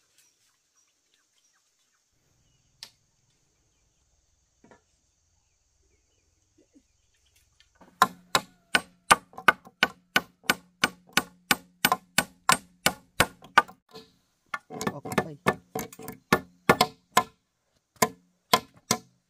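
A hammer driving nails into wooden planks, starting about eight seconds in after a near-quiet start: quick, sharp strikes about three or four a second, with two short pauses.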